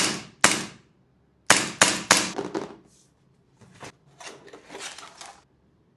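Army Kimber 1911 gas blowback airsoft pistol firing five shots, two about half a second apart and then three in quick succession, each a sharp crack trailing off in a hiss of gas. Several quieter hissing puffs follow.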